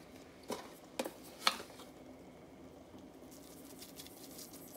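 Salt being sprinkled into a pot of soup: three light clicks about half a second apart, then a faint steady hiss.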